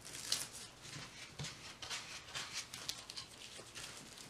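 Flat paintbrush loaded with acrylic paint stroked back and forth across a canvas board textured with modeling paste: a run of short, scratchy brushing strokes, about three a second.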